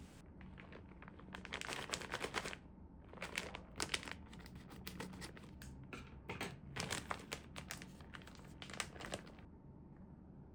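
Plastic wrapping crinkling in several short bursts of crackling, as food packaging is handled.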